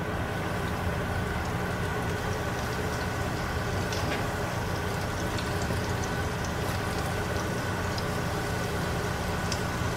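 Floured salmon chunks deep-frying in hot oil: a steady sizzle with a few faint pops as pieces go into the pan.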